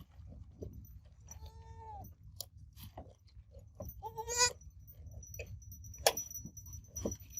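Goat kid bleating twice: a short call, then a louder, wavering one about four seconds in, with scattered sharp clicks and a low rumble in between.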